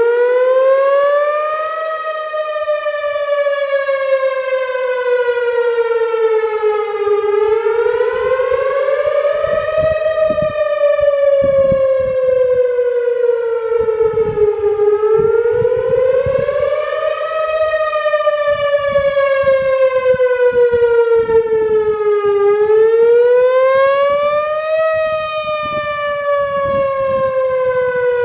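Brand-new Whelen Vortex outdoor warning siren sounding a full wail during its monthly test. Its tone repeatedly climbs for about two seconds and then slides slowly back down, in cycles roughly seven to eight seconds long.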